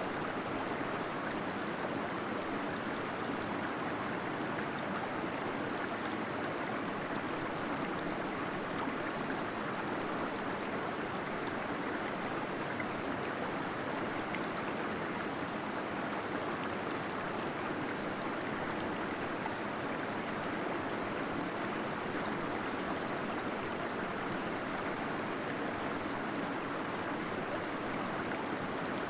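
Small waterfall splashing and gurgling steadily inside a cave, a continuous rush of water.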